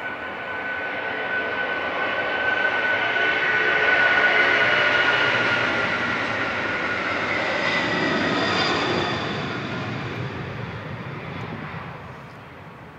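Boeing 747 freighter's four jet engines at takeoff power as it accelerates down the runway and passes by. The sound builds to its loudest about four seconds in, with a high whining tone that slowly falls in pitch, then fades away near the end as the jet moves off.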